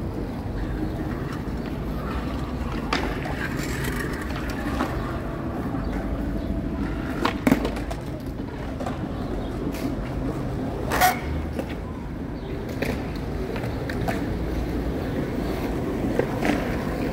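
Skateboard wheels rolling on asphalt, with a few sharp clacks of the board, the loudest about seven and a half and eleven seconds in.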